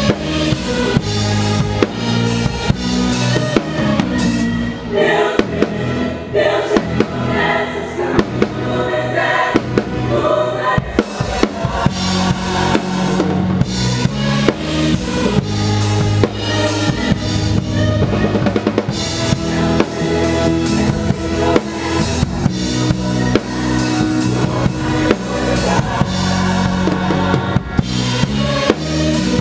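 Rock drum kit played steadily in a live band, the close-miked kick, snare and cymbals loudest, over the band's sustained low bass notes and guitar.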